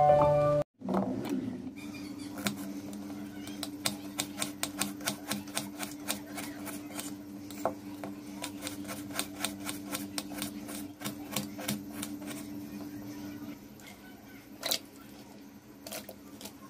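Small knife clicking against a stone countertop as shallots are peeled and cut, quick clicks at about three a second that thin out to a few scattered taps later on. A steady low hum runs underneath and stops near the end.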